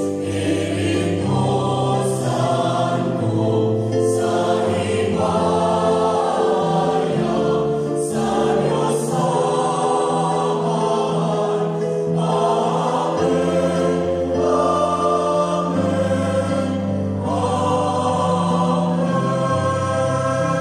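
Mixed choir of men and women singing a hymn in several-part harmony, with electronic keyboard accompaniment; chords are held and change every second or two.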